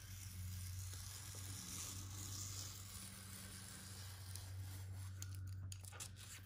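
X-Acto craft knife drawn steadily along the edge of a wooden cradled panel, slicing through the excess paper of an adhesive-backed encaustic print in one long continuous cut.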